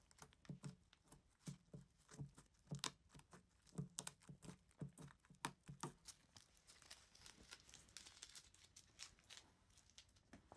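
Strip of painter's tape repeatedly pressed onto and peeled off a guitar pickup's metal pole pieces to lift steel wool dust, making quick sticky crackles and soft taps a couple of times a second. After about six seconds these give way to fainter crinkling of the tape being handled.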